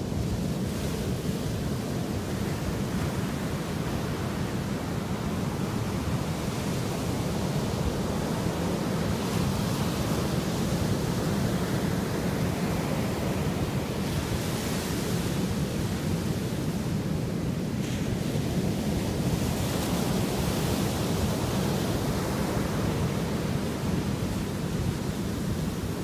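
Ocean surf breaking on a sandy beach: a steady low rumble of the waves, with the hiss of foam washing up the sand swelling and fading several times.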